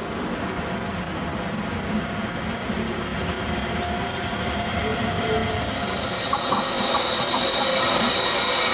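Electric trainset rolling slowly through station pointwork, its wheels squealing in a high, steady tone that sets in about six seconds in and grows louder, over a steady rumble and a few clicks from the rails.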